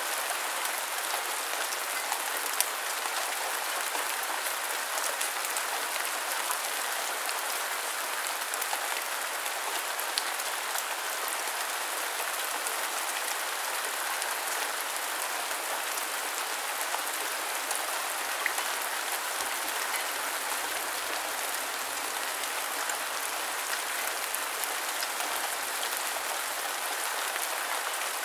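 Steady rain falling, a constant even hiss with scattered sharper drops ticking through it.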